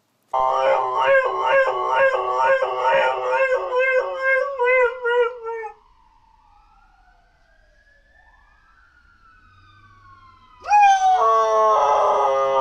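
Dog howling in a loud, wavering note, falling silent for a few seconds while a faint siren rises and falls in the distance, then howling again loudly near the end: howling along with the siren.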